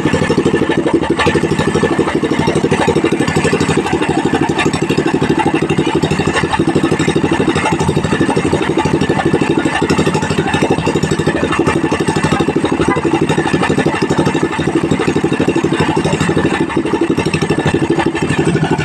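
Pro-Quip 18 hp gasoline engine running steadily, an even rapid beat of firing pulses.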